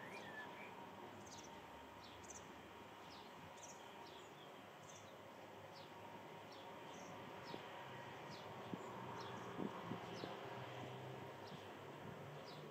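Faint garden ambience: short, high, falling chirps repeating about once a second over a soft steady hiss, with a few faint clicks past the middle.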